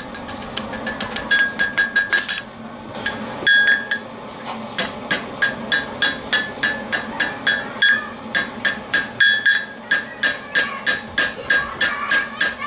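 Hand hammer striking steel held in tongs on a steel anvil, in quick runs of about three to four blows a second with a couple of short pauses. Each blow rings out metallically.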